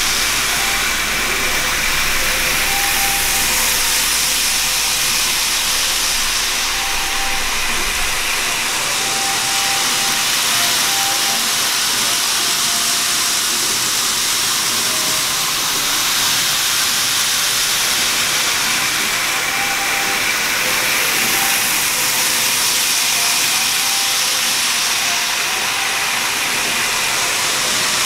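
Several N gauge model trains running on plastic track: a steady rushing hiss of wheels on rails, with faint short whines from the small motors. A low hum underneath cuts out about eight seconds in.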